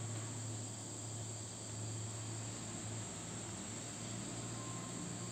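Steady background noise: an even hiss with a constant low hum and a thin, steady high whine.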